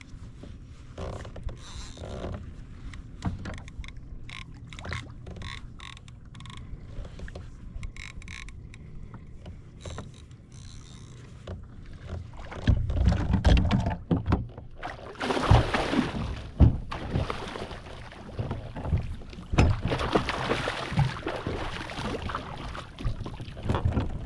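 Water sloshing and splashing against a kayak hull, with scattered knocks and handling noise; it gets much louder and rougher about halfway through.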